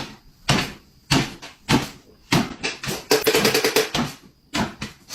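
A series of knocks and bangs, about one every half second, with a fast rattling run of clicks about three seconds in.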